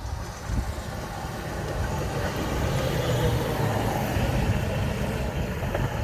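A CSX truck's engine running as it approaches and passes, with a low rumble that grows louder over the first few seconds and then holds steady.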